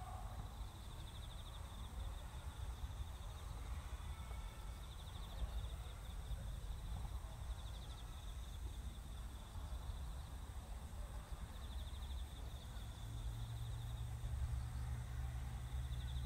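Outdoor rural ambience: a steady low rumble with a thin, high pulsing trill that comes and goes every few seconds, and a low hum joining in near the end.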